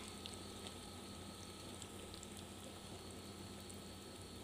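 Stir-fried chicken in red curry sauce quietly simmering in a hot wok: a faint steady hiss with a few scattered soft ticks.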